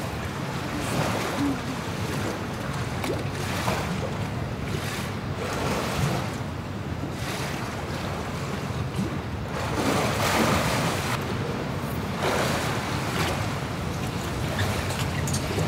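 Pool water sloshing and splashing as polar bears swim and play, with irregular splashes and a louder stretch about ten seconds in, over a steady low rumble.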